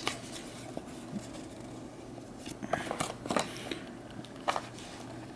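Faint clicks and taps of a coin presentation box being handled, opened and its black inner case lifted out, a cluster of them about three seconds in and one more near the end.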